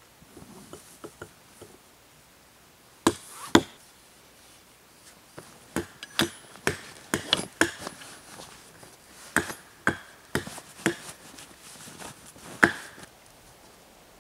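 Camp gear being handled and stowed in a canvas backpack, a hatchet among it: an irregular run of sharp clicks and knocks, starting about three seconds in, with the loudest knocks then and again near the end.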